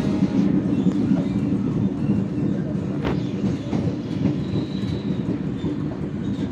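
KRL Commuter electric train running, heard from inside the carriage: a steady low rumble of wheels on the rails, with a single sharp click about three seconds in.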